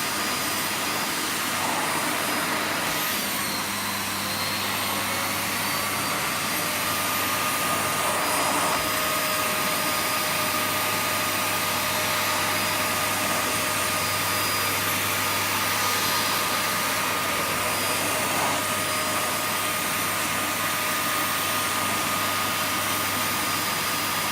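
Vacuum cleaner running steadily: an even rush of air with a high motor whine over it.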